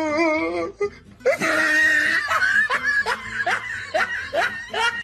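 A person laughing hard, the laughter breaking into quick pulses a little over two a second in the second half.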